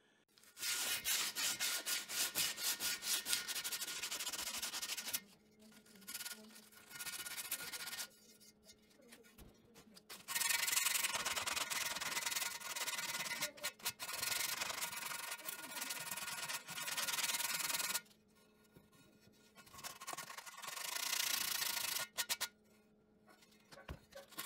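Hand sanding with 120-grit sandpaper over dried Bondo glazing putty on a cast metal machine base, smoothing the filler flush: quick back-and-forth scratchy strokes that stop briefly a few times.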